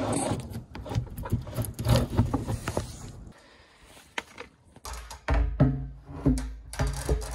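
A run of knocks, clicks and scrapes as a steel-braided hose is handled against a wooden wall and plastic drum, dying down about three seconds in. In the second half comes a rhythmic sound with a steady pitch.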